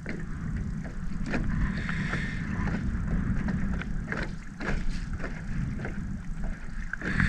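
Small fish being unhooked by hand: scattered light clicks and taps of handling over a steady low rumble.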